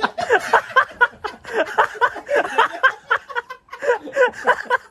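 People laughing, in quick repeated bursts of voice with some unclear chatter mixed in.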